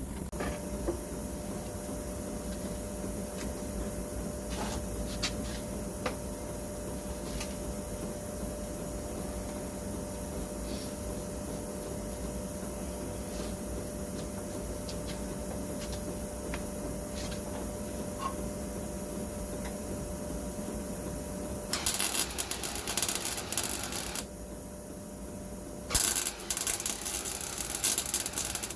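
Welding on the steel of a Rover P6's rear wheel tub: two short runs of fast, uneven arc crackle near the end, over a steady electrical hum with a few light ticks.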